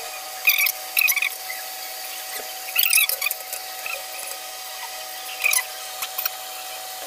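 Grated cassava being wrung out in a wet cloth over a metal bowl: short, scattered squelching and rustling sounds as the hands squeeze the cloth.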